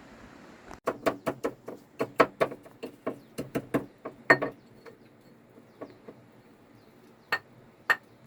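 A quick run of sharp knocks, about four a second for roughly three and a half seconds, followed by a few single knocks spaced out near the end.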